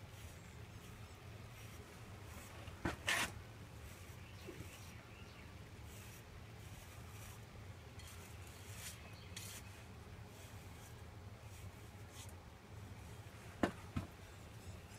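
Faint scratchy strokes of a pet grooming brush through a small terrier's long coat, over a low steady hum. A brief louder rustle about three seconds in, and two short clicks near the end.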